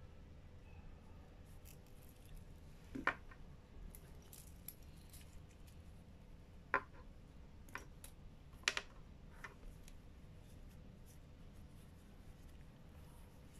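Roamer Elements steel watches and their link bracelets being handled and set down on display cushions: about five faint clicks and metallic clinks, the clearest about three seconds in and near nine seconds, over quiet room tone.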